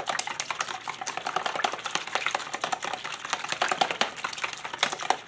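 Fork whisking a raw egg batter in a plastic bowl: quick, irregular clicking of the fork against the bowl with a wet slapping of the batter.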